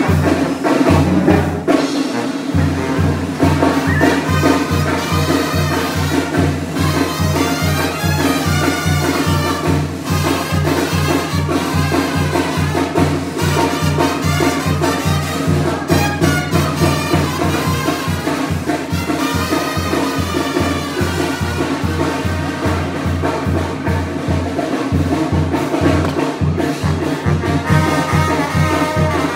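Tamborazo brass band music: trumpets and other horns over a steady low drum beat.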